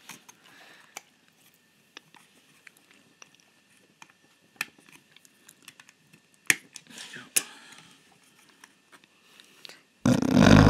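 Small plastic clicks and scrapes as a screwdriver is levered into the pin holes of a Tillig T1 model railcar's plastic roof to pry it loose, with a few sharper clicks around the middle. Near the end a loud rushing noise starts.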